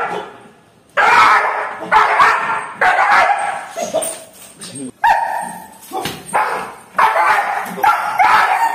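Doberman barking in a run of loud bursts, roughly one a second, with yelps mixed in, starting about a second in.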